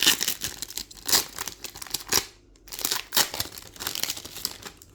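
Foil booster-pack wrapper of a Pokémon card pack being torn open and crinkled by hand, in a run of irregular crackles with a short pause midway.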